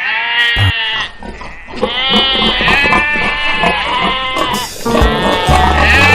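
Bleating calls of a sheep or goat: a short bleat at the start, then a longer run of wavering bleats from about two seconds to nearly five seconds in. Music with low bass notes comes in near the end.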